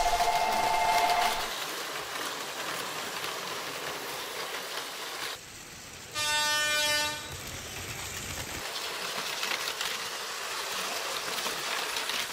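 Battery-powered toy trains running steadily along plastic track, with a two-note tone held for the first second and a half. About six seconds in, a train horn sounds once for under a second.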